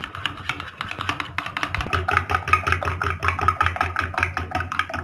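A spoon stirring thick sauce briskly in a glass bowl: a quick, even run of clinks and scrapes against the glass, several a second.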